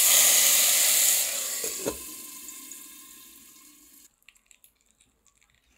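Hot ghee tempering with mustard seeds, red chilli and curry leaves tipped from a small ladle into the curry, hissing and sizzling at once, then dying away over about four seconds. A short knock about two seconds in.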